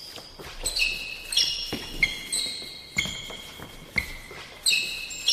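Basketball dribbling on a court, a bounce about once a second with a short ring after each, with short high squeaks over the bounces.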